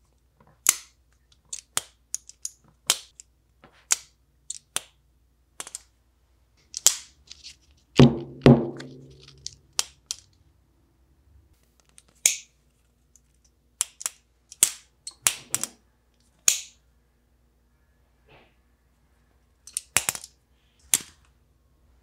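Civivi Vision FG folding knife being opened and closed by hand: a series of sharp clicks and snaps as the blade swings out and locks and is folded shut. About eight seconds in come two heavier knocks with a short low ring.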